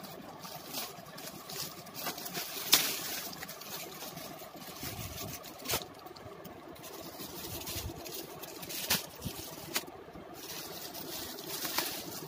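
Clear plastic garment packaging crinkling and crackling as the packed tops are handled, in irregular sharp crackles, the loudest about three seconds in. A steady background hum runs underneath.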